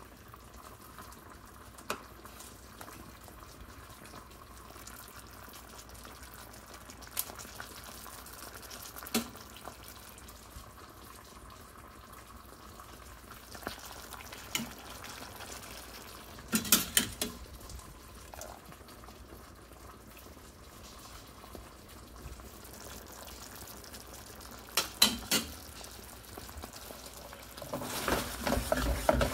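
Pots on a gas stove simmering steadily, with a few sharp clicks of a utensil against the pan. Near the end the bubbling grows louder and denser as the ravioli cook in the cheese sauce.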